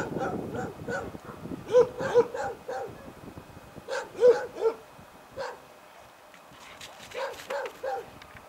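A dog barking in short clusters of several barks, quieter over the last few seconds.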